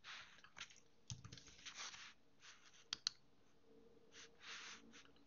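A few faint, sharp clicks from a computer keyboard and mouse during text editing, the strongest pair about three seconds in, with short soft brushing noises between them.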